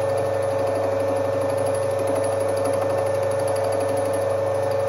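Soviet 1D601 benchtop metal lathe running, its motor and spindle giving a steady whine over a low hum, while the cutter takes a light pass along a spinning metal tube.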